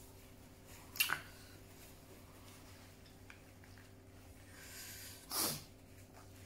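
A person eating spicy green chili sambal: a sharp mouth click about a second in, then, near the end, a short loud nasal sniff as she wipes her mouth and nose with a tissue.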